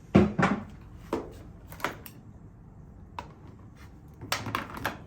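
Irregular clicks and knocks of hand tools and plastic parts being handled while dismantling a washing machine's control panel, coming in short clusters, a busier one near the start and another near the end.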